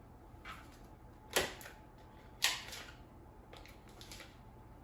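Short clicks and knocks of a utensil and butter pieces against a dish as pieces of butter are added to cut potatoes; about five knocks, the two loudest about a second apart near the middle.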